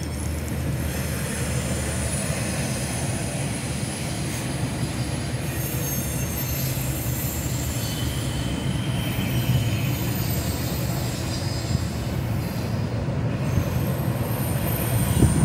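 Freight train cars, double-stack container well cars and gondolas, rolling steadily past at close range: a continuous low rumble of steel wheels on rail, with a thin, high-pitched wheel squeal running through it.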